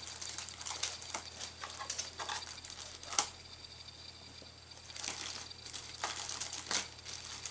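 Plastic packaging bag rustling and crinkling as it is handled, with scattered small clicks, one sharp click about three seconds in, and a denser stretch of rustling about five seconds in.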